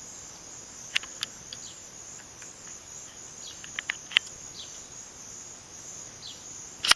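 Steady high-pitched chirring of a late-summer insect chorus, with a few short sharp clicks, the loudest just before the end.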